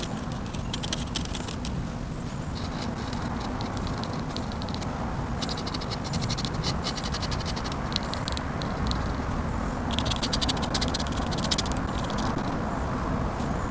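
Pen nib scratching across paper in short bursts of quick strokes as lines and hatching are inked in.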